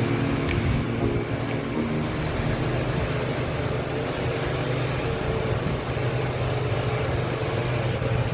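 Small petrol engines running steadily: a ride-on lawn mower and a string trimmer cutting tall grass, with a constant engine hum.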